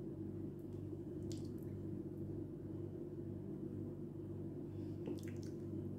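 Brief wet squishes of yogurt-marinated chicken pieces being pushed onto a wooden skewer, once about a second in and again near the end, over a steady low hum.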